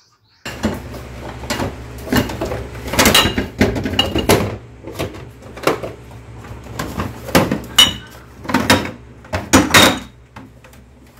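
Glass bottles and jars clinking and knocking against each other as they are shifted about on refrigerator door shelves, a string of separate clinks, some ringing briefly, over a steady low hum.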